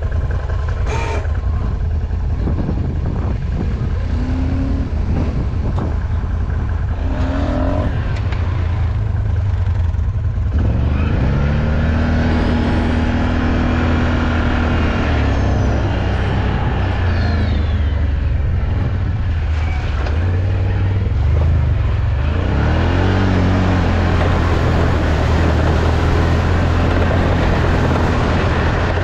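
ATV engine running while riding off-road, with a steady low drone. Its pitch rises and falls with the throttle, revving up about a third of the way in and again past two-thirds.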